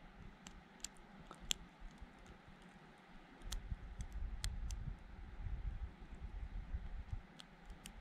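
Pin-tumbler padlock being picked: scattered small sharp clicks as the pick lifts the pins and they set under tension. A low rumble runs through the middle stretch.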